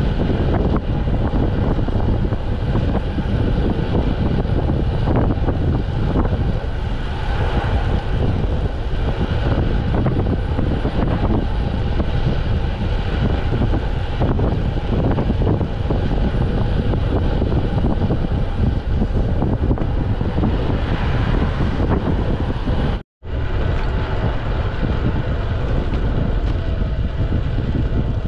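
Steady, loud wind rush over the microphone of a camera on a moving bicycle. It drops out for a split second near the end, where two clips are joined.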